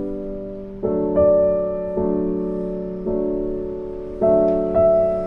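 Soft background piano music: slow chords struck roughly once a second, each left ringing and fading before the next.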